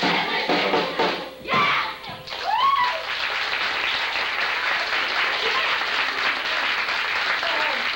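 Music for a stage dance ends within the first two seconds, then an audience applauds steadily.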